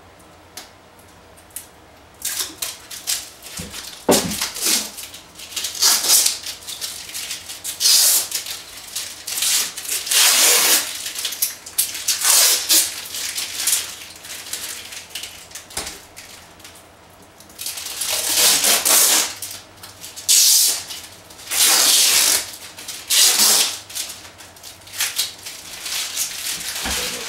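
Protective paper backing being peeled off clear acrylic parts. It comes as a string of short rasping peels, each about half a second to a second long, starting about two seconds in.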